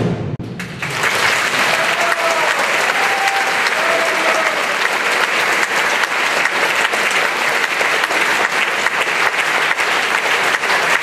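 Concert-hall audience applauding at the end of a wind band's performance. The band's final chord cuts off at the very start, and the applause swells in about a second later and holds steady.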